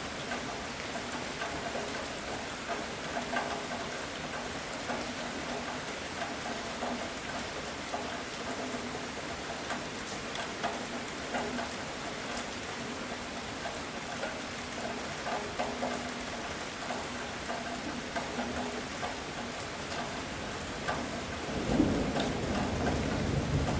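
Heavy rain falling steadily, with many drops pattering on a surface. Near the end a low rumble of thunder begins to roll in.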